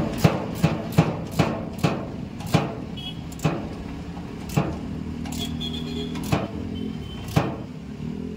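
Steel spanner clinking against the bolt head and lug as the bolt is turned a stroke at a time: about ten sharp metallic clicks, quick at first and spacing out to about one a second.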